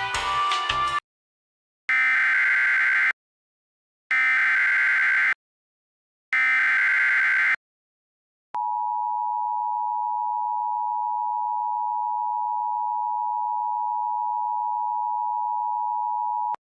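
Emergency Alert System tones: three SAME header data bursts, each a harsh electronic screech about a second long, a second apart, then after a click the EAS two-tone attention signal (853 and 960 Hz together) held steady for about eight seconds and cut off abruptly.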